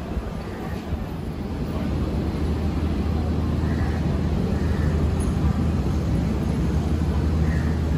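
Urban road traffic at a city junction: a steady low engine hum over a general street rumble, growing louder about two seconds in.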